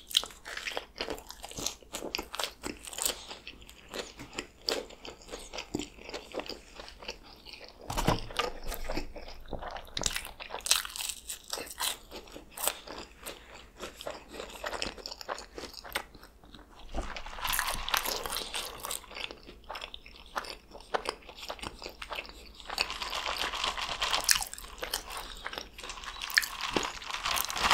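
Close-miked biting and chewing of a McDonald's sandwich: a bite at the start, then many short, wet mouth clicks as it is chewed. In the later part come denser, longer stretches of sound, which fit sips and swallows from a cup of Powerade mixed with Sprite.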